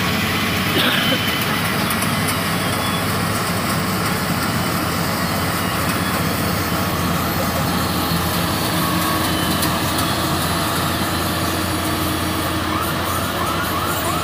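New Holland TC5.30 combine harvester running steadily under load while harvesting, its engine and threshing machinery making a loud, even drone. Near the end a fast run of repeating rising chirps joins in.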